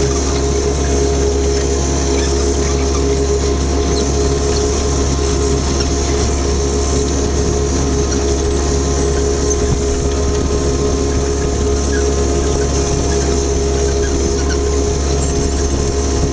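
Jacobsen HR-5111 rotary mower's diesel engine running steadily while the machine drives along at an even pace.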